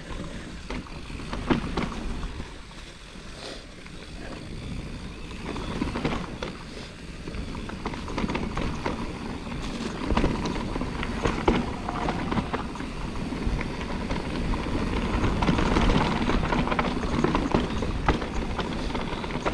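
Mountain bike riding down a rough trail: tyres running over dirt, roots and rocks, with the bike rattling and knocking over the bumps and a steady low rumble. It gets louder about six seconds in.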